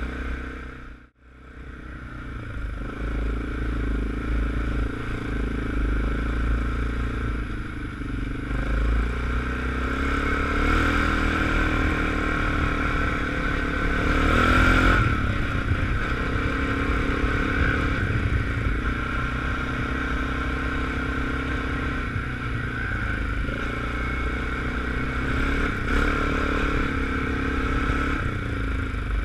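ATV engine running under way on a snowy trail, rising in pitch as it speeds up around 14 to 15 seconds in and then settling back to a steady run. The sound drops out briefly about a second in.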